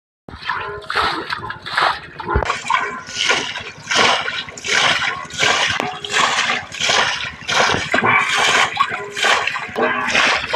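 Water splashing in a steady rhythm, about two splashes a second, starting abruptly right at the beginning.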